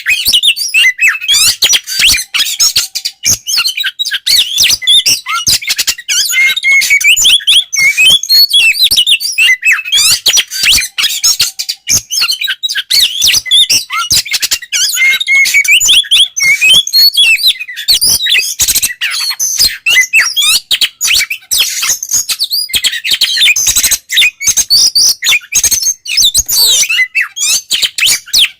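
Oriental magpie-robin (kacer) singing loudly and without a break in the full, open 'ngeplong' style: a fast, dense stream of whistled notes, trills and sharp chattering clicks.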